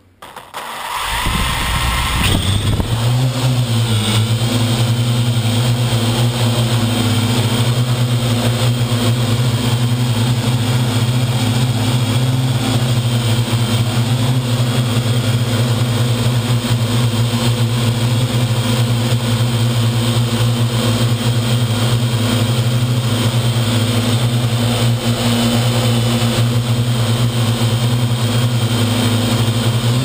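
Parrot AR.Drone quadcopter's four motors and propellers running close to the microphone. After a brief dropout at the start, they rise in pitch over the first two seconds, then hold a steady hum and whine.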